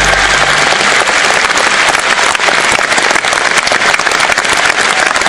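Large audience applauding, a dense, even clapping. The last held note of the music fades out in the first half second.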